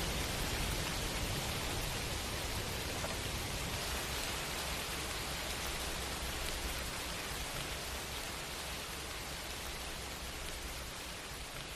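Rain sound effect: a steady, even hiss of falling rain with no thunder or other events, slowly getting quieter.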